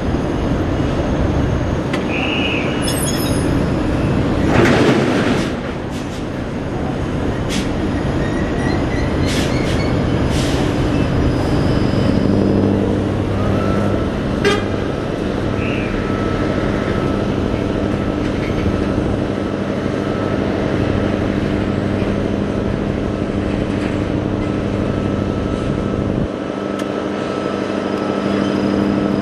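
Kalmar straddle carrier working as it hoists a shipping container off a truck, over steady port machinery and traffic noise. There is a short high beep near three seconds and a loud rush of noise around five seconds in. From about twelve seconds in, a steady droning hum of the machine's engine sets in and holds.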